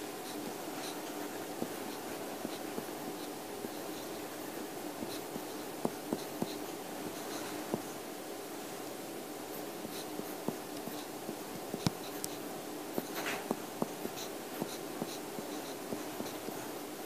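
Pen writing on paper: soft scratching strokes and small taps at irregular intervals, over a steady background hum.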